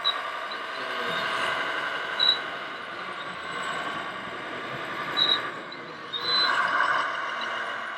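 Radio-controlled model trucks and construction machines running: a steady whine of small motors and gears that swells and eases, with short high chirps about four times.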